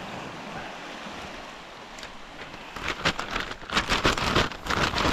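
Plastic wrap bag crinkling and rustling as fish pieces are shaken inside it to coat them, in irregular bursts through the second half, over a steady hiss.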